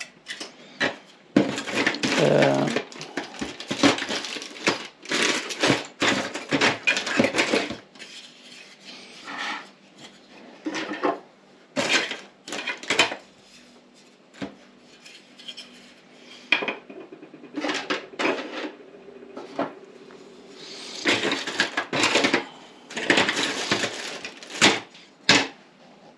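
3D-printed plastic model parts clattering and rattling as they are picked through and set down, in irregular clusters of sharp clicks with quieter gaps between.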